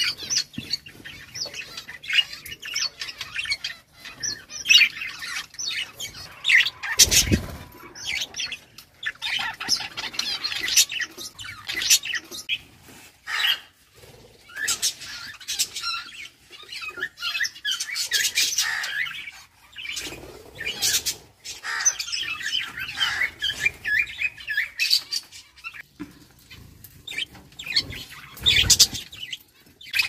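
Budgerigars chirping and chattering: a dense run of short, high calls with brief pauses, broken by a couple of low thumps about seven seconds in and near the end.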